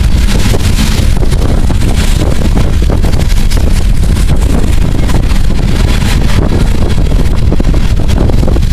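Loaded coal train's steel wheels rolling past on the rails, a steady loud rumble and clatter from the passing gondola cars, with wind buffeting the microphone.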